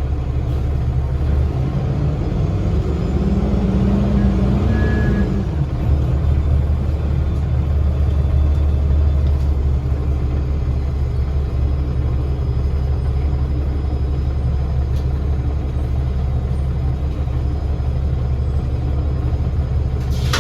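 A Gillig BRT bus's Cummins ISL diesel engine and Voith transmission running, a steady low drone heard from inside the cabin. About three seconds in, a tone climbs in pitch for a couple of seconds and then fades back into the steady drone.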